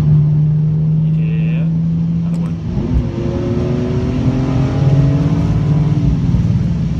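BMW E46 M3's inline-six engine with the SMG gearbox, running at a steady note, then a quick rev blip of a downshift about two and a half seconds in. After the blip the engine note climbs slowly as the car pulls.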